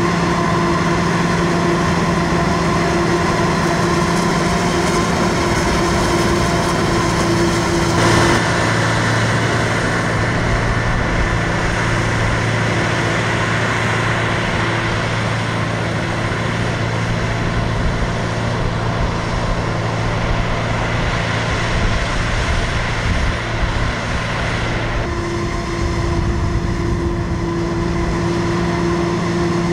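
Heavy diesel harvesting machinery running steadily under load: a continuous engine hum with steady tones over a dense mechanical noise. The sound changes abruptly twice, about 8 seconds in and again about 25 seconds in, as a different machine or vantage takes over.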